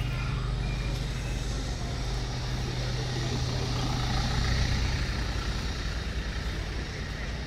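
Small hatchback car, a Peugeot 206, driving slowly past close by on paving. Its engine gives a steady low hum that fades away after about four and a half seconds.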